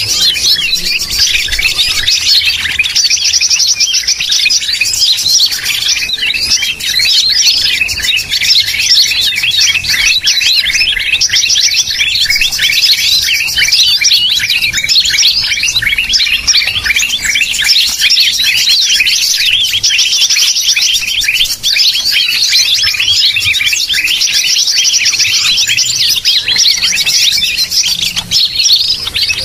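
Green leafbird (cucak hijau) lure call recording: a loud, dense, unbroken stream of rapid chirps and whistled calls, with a fast, even trill cutting in about four times. Played as a lure to draw wild birds in.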